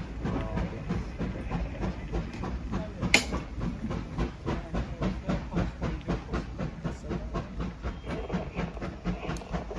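GWR Large Prairie 2-6-2T steam locomotive working away with its train, its exhaust beating in a fast, even rhythm with a steam hiss. A single sharp click sounds about three seconds in.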